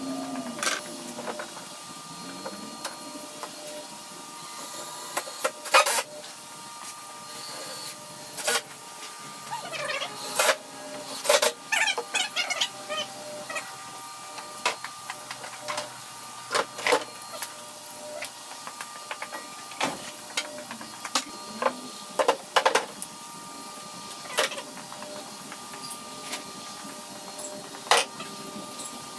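Scattered knocks and bangs of wooden 2x4 boards being set and fastened into a table frame on a plywood top, with short whirs of a cordless drill, over a faint steady hum.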